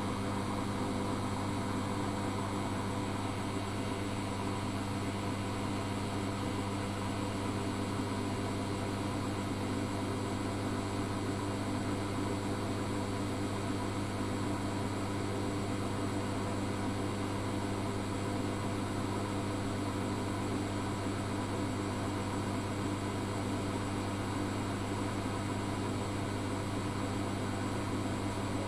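Zanussi FA623 washing machine running with a steady, even hum that holds unchanged throughout.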